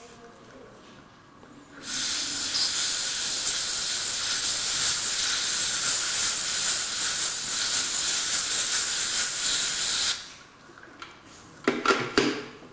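Dental air-water syringe blowing a steady hiss of compressed air onto a molar for about eight seconds, drying the etched enamel before sealant is applied, then cutting off. A few sharp clicks follow near the end.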